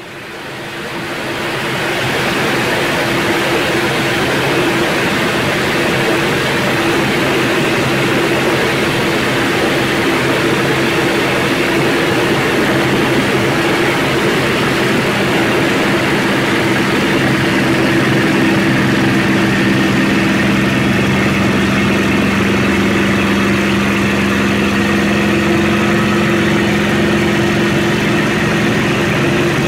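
Spitfire's V12 piston engine running steadily in flight, heard from inside the cockpit over a constant rush of airflow. It fades up over the first two seconds, and a deeper hum strengthens about halfway through.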